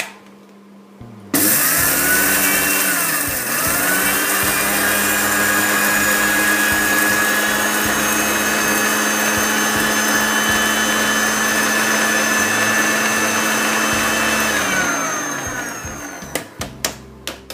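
Electric mixer grinder with a small steel jar grinding MSG (ajinomoto) crystals. The motor starts abruptly about a second in and dips in pitch twice soon after. It then runs at a steady high whine, and near the end it spins down with a falling pitch.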